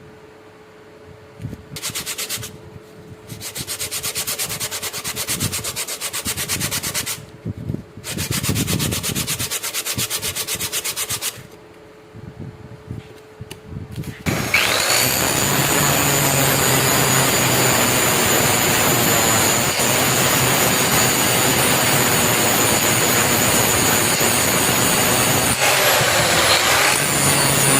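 Abrasive scraping on a rusted steel knife blade in several separate bursts. About halfway through, a power tool spins up with a brief rising whine and then runs steadily and loudly.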